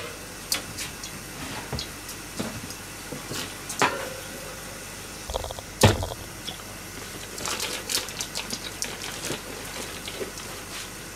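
Pots simmering on lit gas burners: a steady low bubbling hiss with scattered light clicks and knocks, and one sharper knock about six seconds in.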